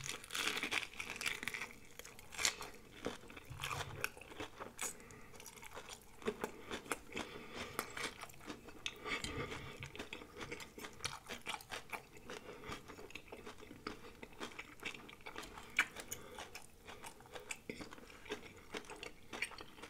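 Close-miked chewing of deep-fried breaded shrimp: a bite at the start, then the crisp fried coating crunches in many sharp crackles as it is chewed.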